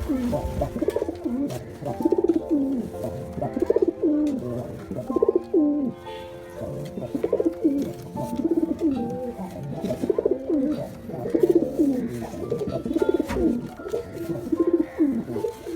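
Pigeons cooing: repeated low, swooping coos, one every second or two.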